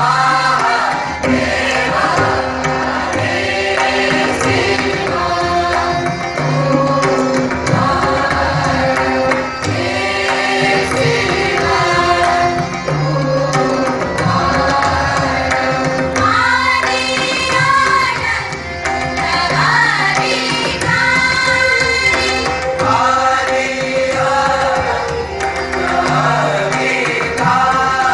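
Hindustani classical group singing: a chorus of voices singing long, gliding phrases together, accompanied by tabla over a steady drone.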